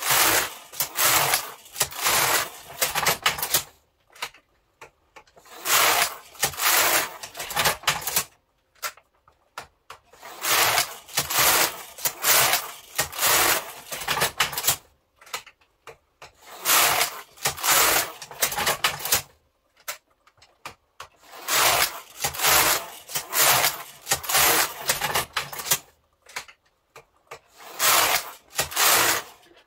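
Carriage of a Passap Duomatic double-bed knitting machine pushed across the needle beds to knit rows: a rasping, clattering sweep as the needles run through the locks, repeated about six times with short pauses between passes.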